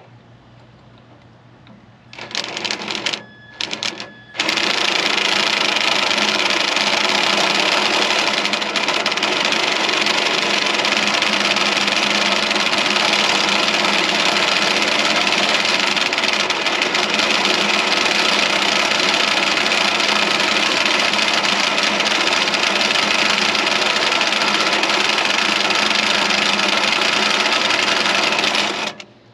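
Power drill boring through a thick steel bar: it starts about two seconds in with two short bursts, then runs steadily and stops near the end.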